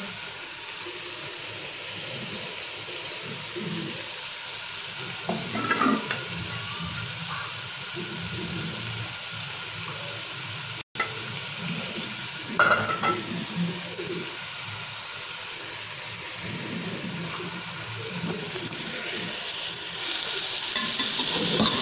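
Boiled chickpeas sizzling in hot oil and onion masala in a steel pot, a steady frying hiss. A few scrapes and clinks of a metal utensil against the pot come about a quarter and about halfway through. The sound cuts out for a moment near the middle.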